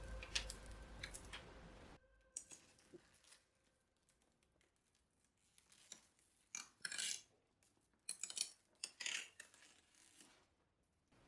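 Background music stops about two seconds in. It leaves faint scattered clicks and rustles of hands working on computer parts, in a few short clusters.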